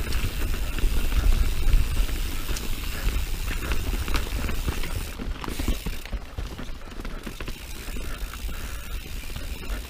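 Mountain bike descending a dirt singletrack: rumble of tyres and wind with the rear hub's freewheel ratcheting as the bike coasts. It gets somewhat quieter about halfway through.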